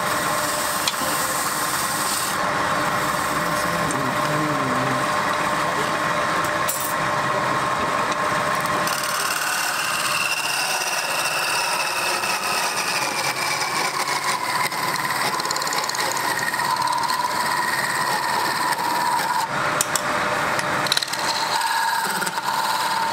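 Wooden goblet spinning on a lathe, rubbed with a wad of fibre and then cut inside the rim with a hand-held chisel: a steady rubbing and scraping of wood, with a thin whine that slides down in pitch about halfway through.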